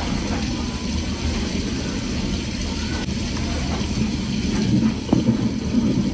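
Close-miked eating sounds: a plastic spoon scooping and scraping through a dry, powdery white food in a plastic tub, with dense crackling. The crackles grow louder and sharper about four and a half seconds in.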